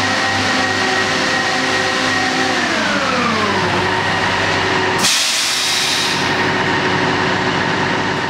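Rail grinder's diesel power units running beside the platform, a steady whining note that slides down in pitch about three seconds in. About five seconds in comes a sudden hiss of released air lasting about a second.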